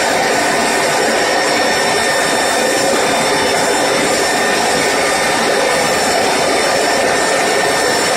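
Electric core cutting machine running steadily as it drills into concrete: a constant high motor whine over grinding noise.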